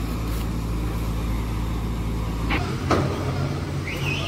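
Heavy diesel engine running steadily. Its note shifts about two and a half seconds in, and there are two sharp clanks close together.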